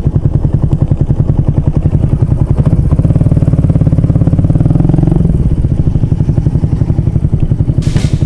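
Single-cylinder motorcycle engine running under way, its revs climbing steadily, then dropping about five seconds in as it shifts gear. Music comes in near the end.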